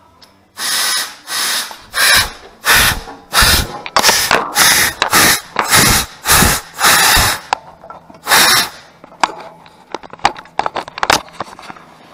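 Shop press's hydraulic bottle jack being pumped under load: a rhythmic run of about a dozen noisy strokes, roughly two a second, that stops after about eight seconds. The jack is failing under the bend, its cylinder blowing out.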